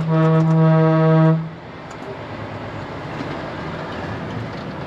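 A truck air horn sounds one loud, steady single-note blast that cuts off suddenly about a second and a half in. After it comes the low, steady rumble of the lorry's engine and road noise inside the cab.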